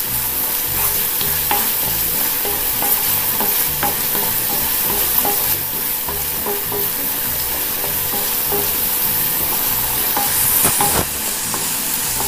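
Chopped onion, green chilli and curry leaves sizzling in hot oil in a nonstick pan while a wooden spatula stirs them, knocking and scraping against the pan about twice a second.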